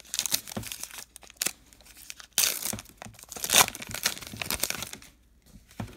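A 2019 Topps Allen & Ginter baseball card pack's crimped wrapper being torn open by hand and crinkled, in uneven rips with the loudest about two and a half and three and a half seconds in, then dying down near the end.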